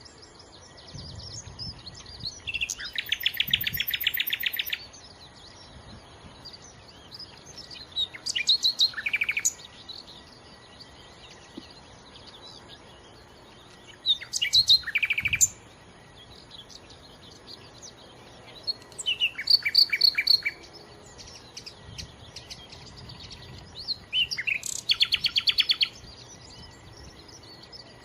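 Nightingale singing: about five short phrases of rapid repeated notes and trills, each a second or two long, separated by pauses of a few seconds.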